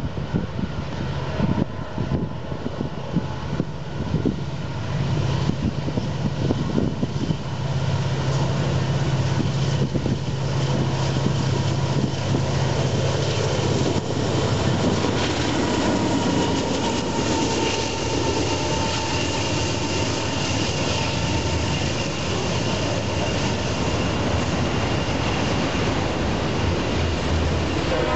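Union Pacific freight train passing close by. The diesel locomotives' engine drone builds as they approach and is loudest about halfway through. It then gives way to the steady rolling noise of the autorack cars going by.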